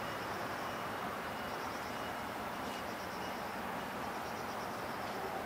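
Steady outdoor background noise with a faint, high, rapidly pulsing buzz above it.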